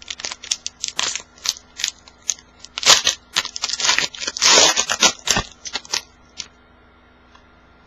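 A trading-card pack wrapper crinkling and tearing open, with quick clicks and rustles of cards being handled; the longest, loudest tear comes about four and a half seconds in, and the handling stops about six seconds in.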